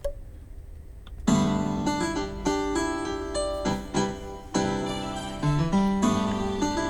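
Instrumental introduction of a pop ballad played on a piano-like keyboard: a chord is struck about a second in, followed by further chords and moving notes.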